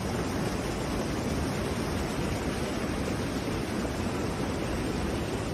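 Steady rushing noise of floodwater, with wind rumbling on the microphone.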